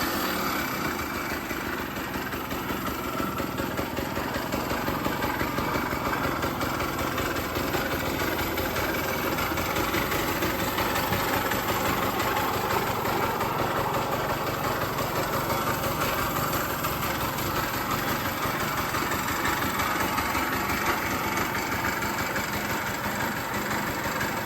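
Yamaha MR50's small two-stroke single-cylinder engine idling steadily with a rapid, even pulsing, settling down from a rev just before. It is running from a cold start, with an abnormal noise that the owner wants to show.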